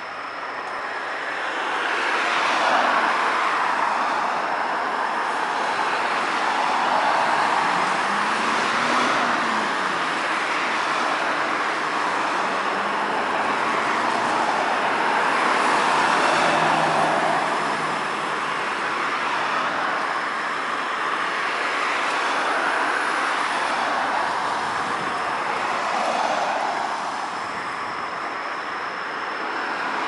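Cars passing one after another on a rain-wet street, their tyres hissing on the wet road, the sound swelling and fading as each goes by. About a third of the way in, one passing car's engine hum rises and falls in pitch.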